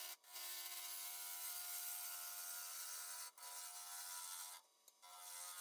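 A turning tool cutting into a cherry burl blank spinning on a wood lathe, with shavings coming off in a steady hiss. The cut comes in three passes, with short breaks about three seconds and four and a half seconds in where the tool lifts off.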